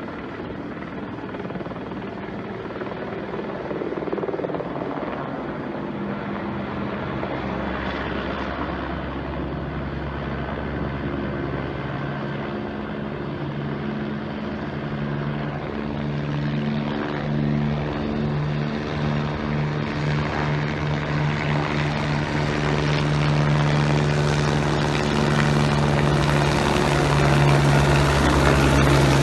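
A firefighting helicopter's rotor and turbine engine, a steady low drone that grows steadily louder as the helicopter comes closer.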